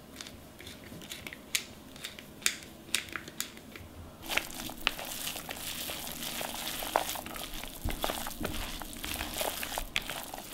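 Pepper mill grinding black pepper with scattered crunching clicks. About four seconds in, this gives way to hands squishing and kneading ground pork filling in a plastic bowl.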